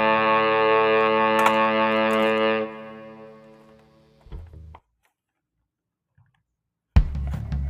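Background music: a guitar chord with distortion held and then fading away. This is followed by a couple of seconds of silence, and the music starts again abruptly near the end.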